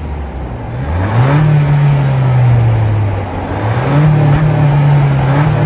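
2022 Honda Civic hatchback engine through its stock muffler, revved in two blips: the pitch rises about a second in, holds, drops back, then rises again about four seconds in and holds.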